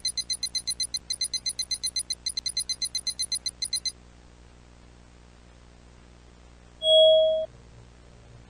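A computer loading sound: rapid, even high electronic beeping at about seven beeps a second, which stops about four seconds in. About seven seconds in comes a single louder, lower beep lasting about half a second, over a faint low hum.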